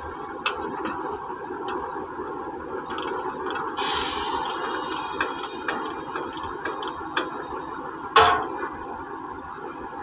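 Steady work-yard noise with scattered light metallic clicks and ticks. A short hiss comes about four seconds in, and a sharper metallic clank a little after eight seconds.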